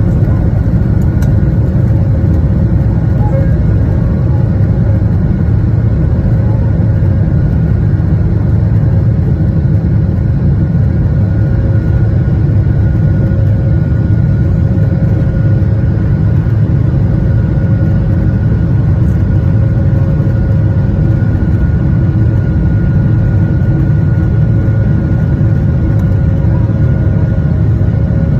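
Jet airliner engines at takeoff thrust, heard from inside the cabin: a loud, steady rumble with a steady whine on top, running unchanged through the end of the takeoff roll and the initial climb.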